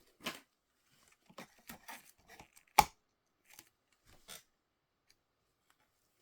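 Toy packaging being handled and torn open: a run of short tearing and crinkling sounds with a sharp snap about three seconds in, then it goes still.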